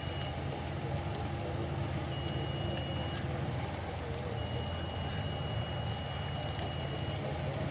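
A steady low engine hum, like a motor vehicle idling close by, with a thin high steady tone that comes and goes in stretches of one to three seconds.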